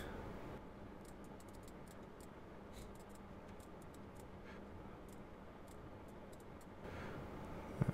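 Faint scattered clicks from working at a computer, over a low steady hum.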